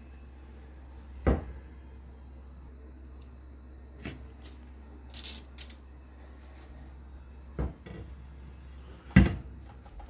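Kitchenware clatter: a glass pot lid and a steel cooking pot knocked and set down a few times, the loudest knock near the end, with a brief hiss in the middle and a steady low hum underneath.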